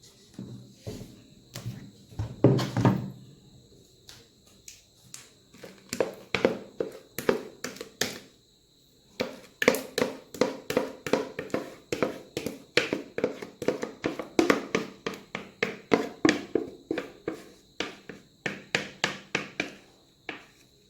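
Kitchen utensil tapping and scraping against a container as thick bread batter is emptied into a baking pan. A few scattered knocks come first, then a steady run of sharp taps, about two or three a second, through the second half.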